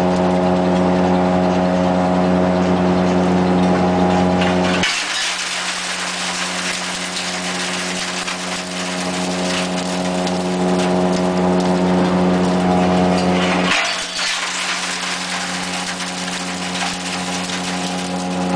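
BRM 600 HD crusher running with a steady pitched hum. From about five to about fourteen seconds in, the hum weakens under a dense crackling crunch of CRT monitor glass being crushed, then the hum comes back stronger.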